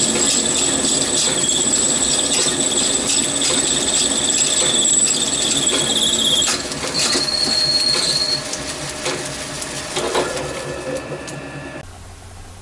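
Small metal lathe turning a brass rod, the cutting tool giving a steady high-pitched squeal over the running machine. The squeal stops about six and a half seconds in, a shorter squeal follows, and then the lathe runs on more quietly before the sound cuts off near the end.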